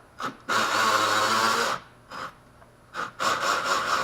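Snap-on cordless battery ratchet running on a fastener: two short trigger taps, then a run of over a second, another tap, and a longer run that is still going at the end.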